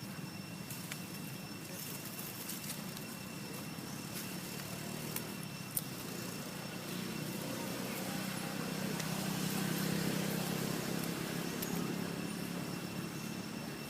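Road traffic: a motor vehicle's engine and tyres grow louder to a peak about ten seconds in, then ease off, over a steady background, with one sharp click a little before the middle.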